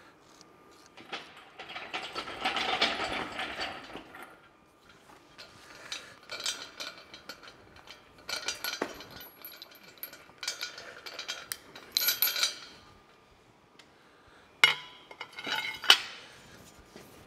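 A few seconds of hiss from an aerosol spray can, then the clinking and rattling of a crane's steel lifting chain and hook being worked. Near the end come two sharp metallic clanks from a long breaker bar and socket.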